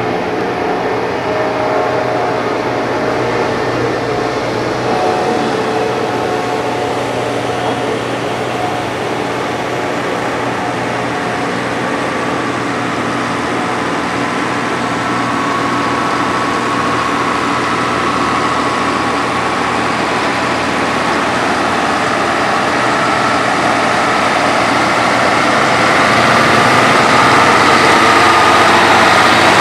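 Heavy diesel engine of road-construction machinery running steadily with a constant whine, growing gradually louder toward the end.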